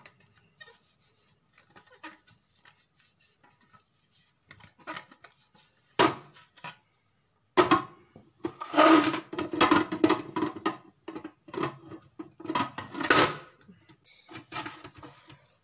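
Plastic parts of an electric juicer being handled: cloth rubbing over the plastic and parts knocking and scraping as the pusher is wiped and pushed into the feed tube. A few light clicks at first, then a dense stretch of rubbing and clattering in the middle.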